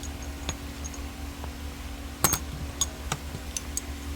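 Hand tools clinking: a few light, irregular metal clicks as a 7 mm ratchet and socket are handled. The sharpest clink comes about two seconds in, over a steady low hum.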